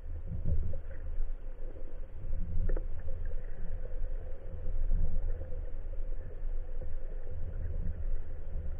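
Muffled underwater noise picked up by a camera in its waterproof housing on a speargun: a steady low rumble of moving water with a faint steady hum, and a small click about three seconds in.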